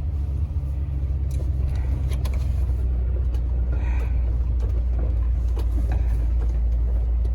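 Volkswagen Vanagon driving on a snow-covered road with ice ruts: a steady low engine and road rumble, with a few faint clicks and knocks over it.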